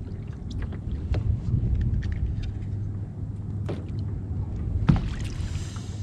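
Steady low rumble of water and wind around a fishing kayak on the sea, with a few light knocks. The sharpest knock comes about five seconds in.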